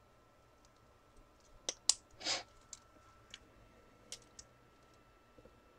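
Faint, scattered clicking of a computer keyboard and mouse: a quick cluster of clicks and one short scuff between about one and a half and two and a half seconds in, then a few more spaced clicks.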